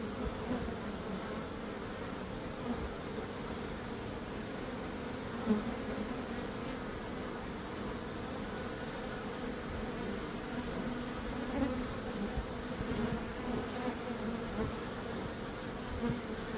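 Bees buzzing together in a steady drone, swelling briefly a few times.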